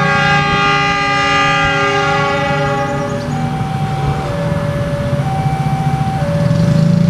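Diesel locomotive horn sounding one chord of several notes for about three seconds over the locomotive's engine rumble. Behind it a level-crossing warning alarm alternates between two tones about once a second.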